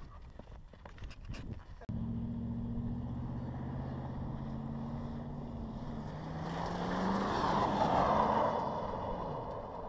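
A vehicle engine running steadily, starting abruptly about two seconds in. About six seconds in its pitch rises as it speeds up, with a rush of noise that swells and then fades, like a vehicle going past.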